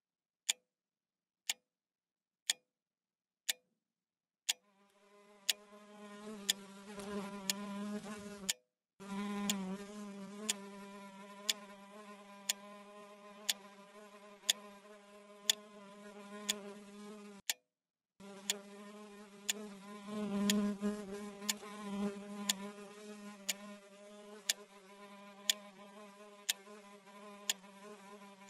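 Housefly buzzing in long continuous drones, starting about four seconds in and breaking off briefly twice, over a clock ticking steadily about once a second.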